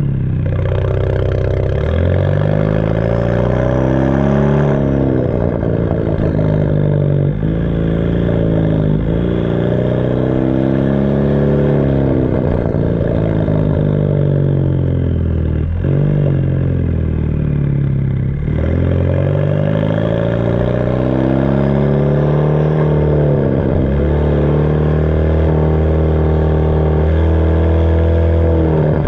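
Hyundai Veloster Turbo's turbocharged four-cylinder exhaust through a catless 3-inch downpipe and a 3-inch straight pipe with no mufflers or resonators, loud and raspy, its pitch climbing and falling again and again as the car accelerates and lets off at low speed. A few short sharp cracks come as the throttle closes, from a tune with added pops and bangs.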